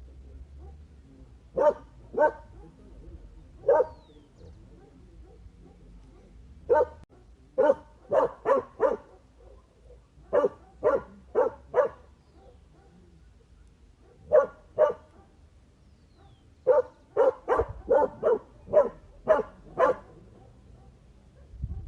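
A dog barking in irregular bouts. It gives a few single barks, then quick runs of three or four, and a longer run of about eight barks near the end.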